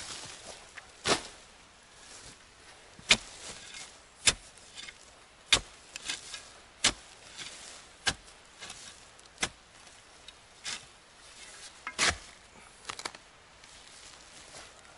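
A shovel digging into soil and leaf litter and throwing the earth onto a bank heaped against a dugout wall to insulate it. There is a sharp scrape-and-strike about every second and a quarter, with smaller crunches between them.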